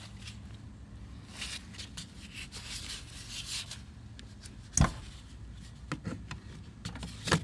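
Rustling and clattering of hoses and parts being moved by hand in a car's engine bay, with two sharp knocks, one about five seconds in and one near the end.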